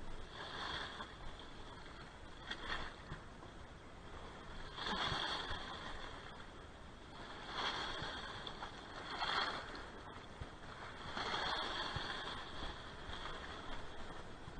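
Small sea waves washing over a low rock shelf: a rush of water that swells and fades about six times, every two to three seconds.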